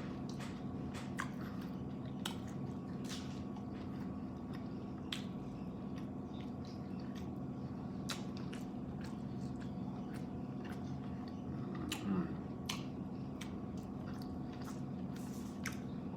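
Close-up wet chewing and biting of a burrito: irregular soft squishes and mouth clicks, over a steady background hum.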